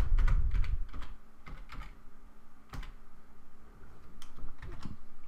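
Computer keyboard keys tapped in an irregular run of keystrokes as a password is typed.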